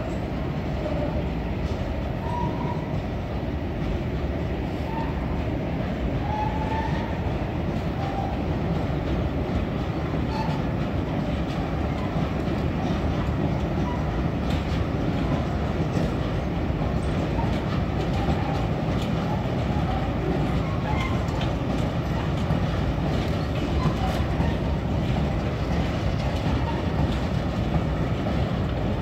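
Train of PCA cement tank wagons rolling past over the rails: a steady rumble with faint clicks as the wheels run over rail joints.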